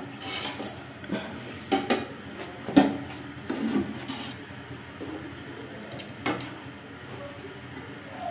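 Kitchen handling noises around a steel cooking pot: scattered light knocks and rubbing sounds, the loudest nearly three seconds in.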